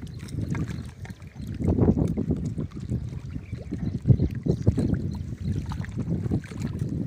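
Wind buffeting the phone's microphone as a low rumble, with rustling and knocks as the phone is handled against a shirt; the loudest knock comes about four seconds in.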